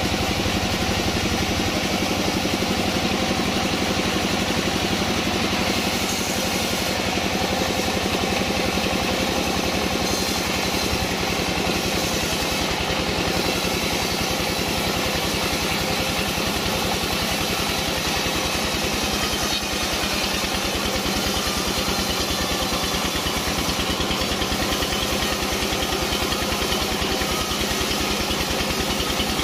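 The engine of a wood sawmill running steadily at an even speed, with a fast, regular firing pulse.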